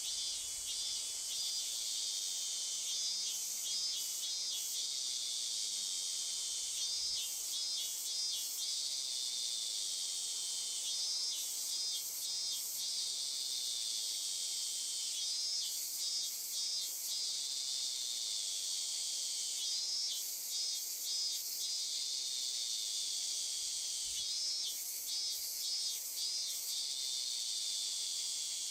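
Insect chorus of crickets or cicadas: a steady high, shrill buzzing, with bursts of fast pulsed chirps that come back about every four seconds.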